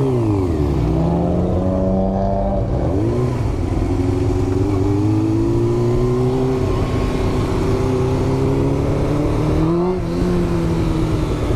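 Motorcycle engine running under way while riding: the revs dip at the start, climb for about two seconds, fall again about three seconds in, then rise slowly and ease off near the end.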